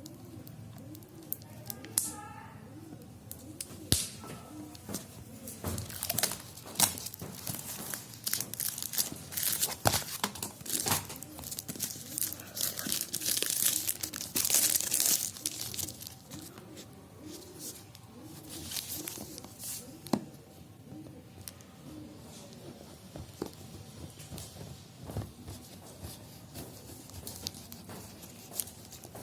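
Packaging being torn open: tape and plastic wrap on a phone box ripped and crinkled, with scattered clicks and knocks of the box being handled. The tearing and crinkling is densest and loudest about twelve to sixteen seconds in.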